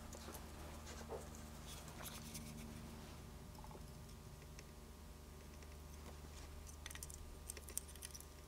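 Faint, scattered small clicks and taps of hands handling a thin wire and a circuit board during soldering, a little busier near the end, over a steady low hum.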